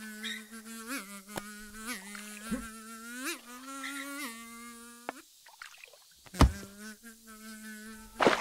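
Cartoon fly buzzing steadily, its pitch swooping up briefly every second or so. The buzz breaks off about five seconds in, a loud sharp smack follows, then the buzz comes back for a moment before another loud hit near the end.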